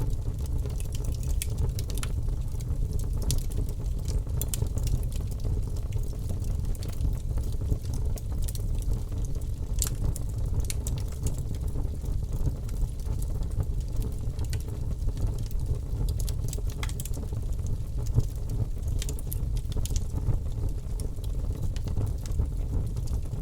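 Bonfire burning, with a steady low rumble and frequent irregular crackles and pops from the burning wood.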